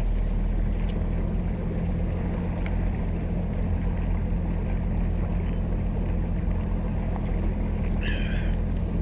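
Boat's outboard motor running steadily, a low hum with wind and water noise over it.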